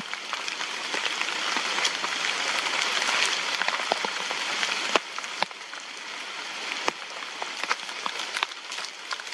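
Steady rain falling, a continuous hiss with scattered sharp ticks of drops or small knocks; the strongest ticks come about five seconds in.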